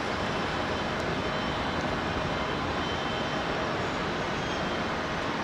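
Jet engines of a taxiing Boeing 787, Rolls-Royce Trent 1000 turbofans at idle thrust: a steady rushing rumble with a faint high whine.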